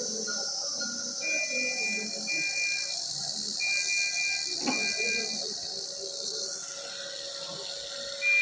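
A steady hiss with a high electronic tone sounding in about four long beeps, and one sharp click about halfway through; after the beeps stop only the hiss remains.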